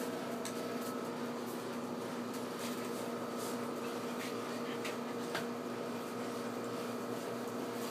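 A steady mechanical hum with a few faint clicks over it.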